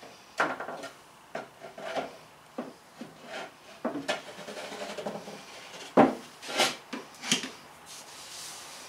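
A plywood board being slid and worked into place on a wooden cabinet frame: a series of wood-on-wood scrapes and knocks, the sharpest knock about six seconds in.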